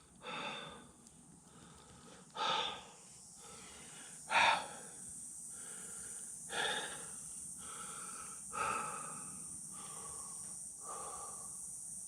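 A man breathing hard with exertion, giving five heavy puffs of breath about every two seconds as he strains to lift a heavy hydraulic lift ram into place.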